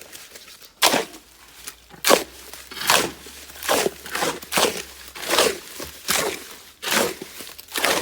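Footsteps crunching on rough ground at a steady walking pace, about one step every 0.8 seconds.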